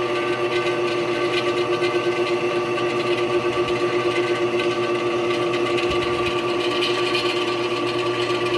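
Benchtop drill press's motor and spindle running at a steady speed, giving an even hum.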